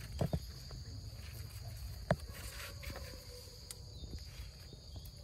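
Steady high-pitched drone of insects, over a low rumble, with a few short knocks; the sharpest comes about two seconds in.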